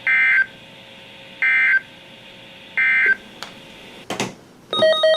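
Three short bursts of EAS/SAME digital data tones from a NOAA Weather Radio broadcast, each about half a second long and about a second and a half apart: the end-of-message signal that closes an alert. A click follows, and near the end a loud pattern of rapidly alternating electronic tones begins.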